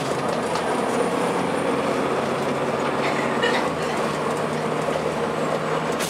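Cabin noise inside a moving 2002 Blue Bird CS transit bus: its Cummins ISC diesel engine running steadily under road noise, with the body and windows rattling and clicking.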